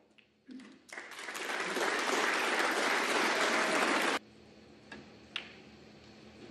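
Snooker arena audience applauding, swelling over about a second and then cut off suddenly partway through.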